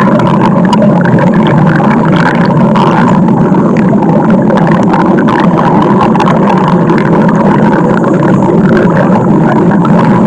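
Stomach growling: a loud, continuous rumbling that runs on without a break.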